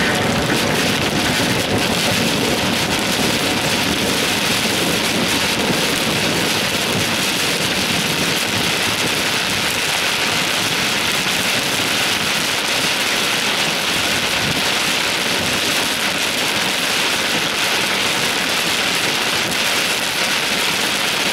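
Heavy rain pounding on a car's windshield and roof, heard from inside the cabin while driving: a steady, dense hiss that does not let up.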